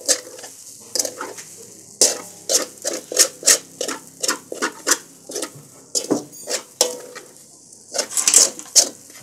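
A metal spoon scraping a metal pan as crumbly fermented-flour dough is turned over and over, in repeated short scrapes about two or three a second.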